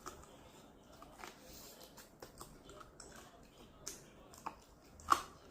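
A person eating chicken wings: chewing and biting with scattered short mouth clicks and smacks, the sharpest about five seconds in.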